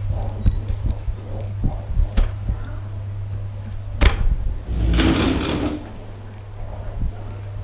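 Scotch-Brite flat mop pushed over ceramic floor tiles: the pad slides and scrapes, and the head and pole knock against the skirting and chair legs. There is a sharp knock about four seconds in and a longer scrape about a second later.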